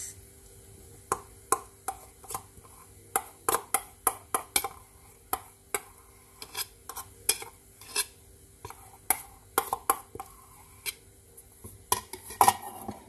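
A metal spoon scraping and clinking against a small stainless steel bowl as thick condensed milk is scraped out into a mixing bowl, giving irregular sharp clinks. Near the end comes a louder clatter as the steel bowl is set down onto other steel bowls.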